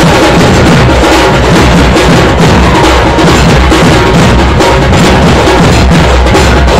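Dhol and tasha drums played loudly in a continuous, fast drumming.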